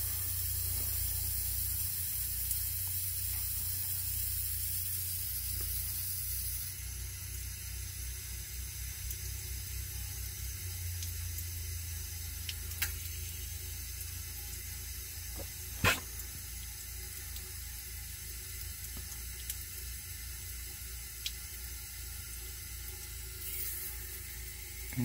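Water rushing and hissing out of a leaky garden hose while a shallow-well jet pump runs with a low, steady hum, as the pressure tank is drawn down to test whether the pump cycles. The hiss eases about a quarter of the way in. A few sharp clicks come near the middle, the loudest a little past halfway.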